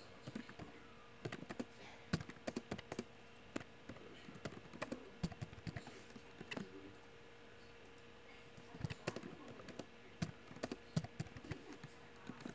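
Computer keyboard typing: quick runs of keystrokes, with a pause of about a second and a half just past the middle.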